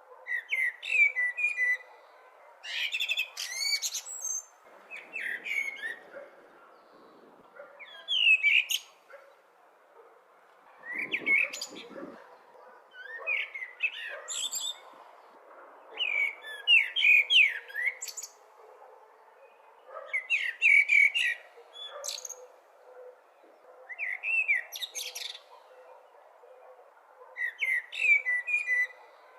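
Blackbird singing: short warbled phrases, each ending in a thin high twitter, about one every three seconds with pauses between, over a faint steady background hiss.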